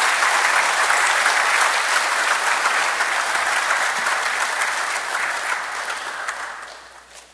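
Applause from the assembly members after the Deputy Speaker is declared elected: steady clapping that dies away near the end.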